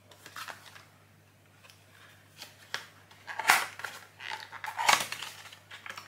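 Small cardboard calendar box being opened by hand: irregular scrapes and rustles of cardboard and paper, the loudest about three and a half and five seconds in.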